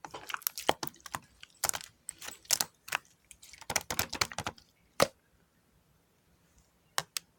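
Clear slime mixed with PP plastic beads being squeezed and pressed, giving rapid crunchy clicks and pops. The clicking stops about five seconds in, with two more clicks near the end.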